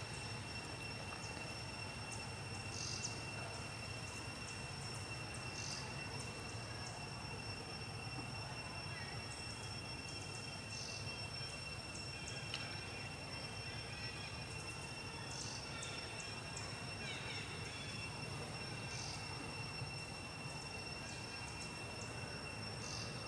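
Steady background ambience: a low hum, a constant high-pitched whine, and a short high chirp repeating every three to five seconds.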